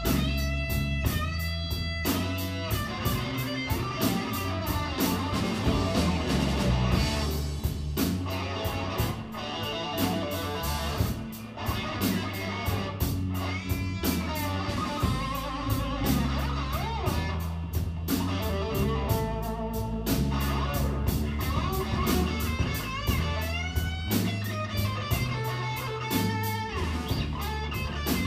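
A live blues band playing a slow blues: lead electric guitar plays an instrumental solo full of bent notes over bass guitar and drums.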